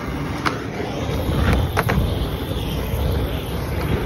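Steady rushing noise of aerosol spray paint and a handheld torch flame being played over a wet spray painting, with a couple of sharp clicks a little under two seconds in.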